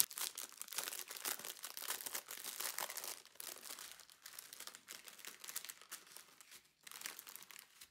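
Clear plastic packaging crinkling as hands open a packet of small zip-lock baggies of diamond painting drills, busy for the first three seconds and sparser after.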